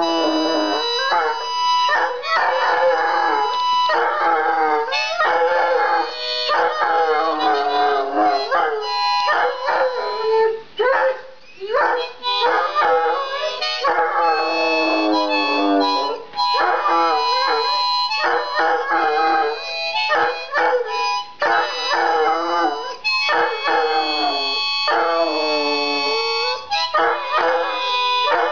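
Hound dog howling, a long run of wavering howls a second or two each that slide up and down in pitch, over steady held musical notes.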